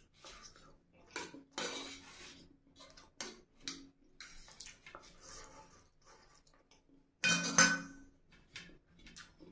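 Metal fork scraping and clinking against a steel plate while picking up chow mein noodles: a series of short scrapes and clicks, the loudest a ringing clink about seven seconds in.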